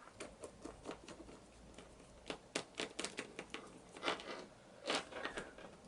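Irregular small clicks and taps as a small screw is tightened down into an RC car's plastic steering assembly and the parts are handled.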